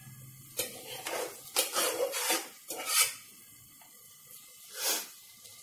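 Spatula scraping cooked carrot mixture out of a metal pressure cooker into a kadhai, then spreading it in the pan. A run of irregular scrapes fills the first three seconds, with one more about five seconds in.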